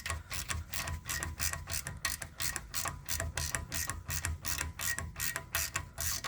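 Hand ratchet wrench clicking in a steady run of about three to four clicks a second as the 8 mm bolt of the front wheel speed sensor is loosened.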